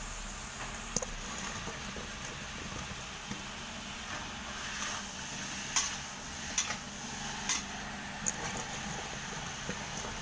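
Shrimp and mixed vegetables (snow peas, cauliflower) sizzling in a hot metal wok as they are stir-fried with a metal spatula. A steady sizzle runs throughout, with a few sharp clinks and scrapes of the spatula against the pan, mostly in the second half.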